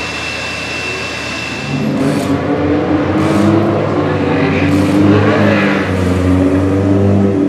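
McLaren M26's Cosworth DFV V8 running at low revs for the roll-out, getting louder and fuller about two seconds in.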